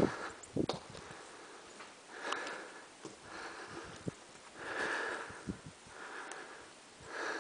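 A person breathing in and out through the nose close to the microphone, a soft breath every second or so, with a few light clicks from handling the camera. A brief knock right at the start.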